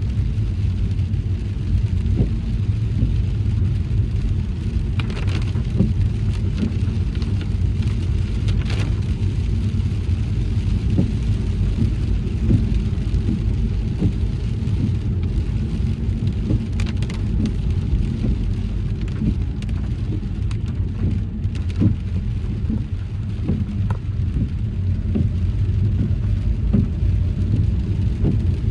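A car driving in heavy rain: a steady low rumble of tyres and engine, with raindrops ticking on the car all the while.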